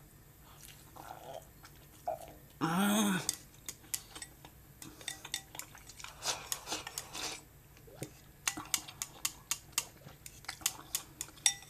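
Chopsticks clicking and tapping against a ceramic rice bowl and plates while eating, the clicks coming thick and fast in the last few seconds. A short hummed "mm" about three seconds in.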